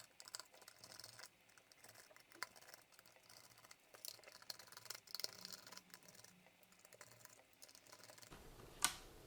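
Faint, scattered plastic clicks and scratches from the case of an RC car's handheld transmitter being handled and pried apart, with a slightly louder click near the end.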